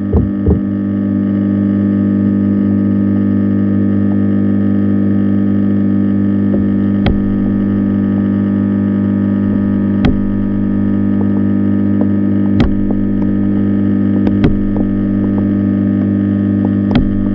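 Steady low electrical hum, like mains hum, picked up by a camera underwater, with about five sharp clicks a few seconds apart.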